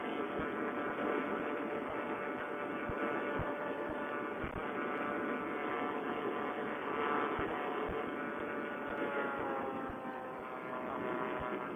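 Vittorazi Moster two-stroke single-cylinder paramotor engine running under power as the trike climbs out. Its pitch eases down a little near the end as the throttle is brought back.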